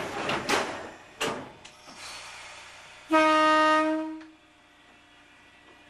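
A few knocks and clunks, then the electric train's horn sounds one steady blast of about a second, a little over three seconds in, as the train is about to depart.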